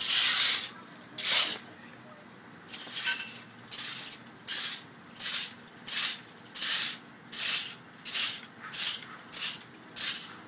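Sand being swept and scraped across the glass bottle bottoms in short hissing strokes. Two strokes, a pause of about a second, then a steady rhythm of about three strokes every two seconds.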